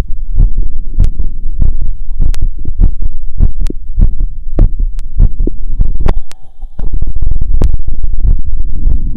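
Fast heartbeat heard through a wired stethoscope, about 150 beats a minute after a 2 km run: rapid paired lub-dub thumps over a low hum, with occasional sharp clicks. The beat drops away briefly about two-thirds of the way in.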